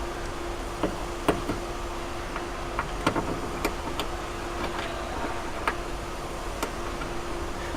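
Scattered light metallic clicks and knocks, about a dozen at uneven spacing, of tools and parts being handled while a 10 mm bolt is fitted inside a car door, over a steady low background hum.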